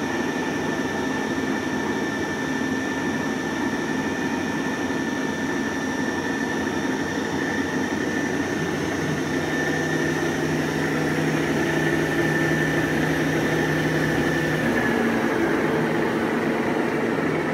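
Dainichi BX45 CNC turning center running: a steady machine hum with a high whine over it. A lower tone comes in about halfway through, holds for about six seconds and stops.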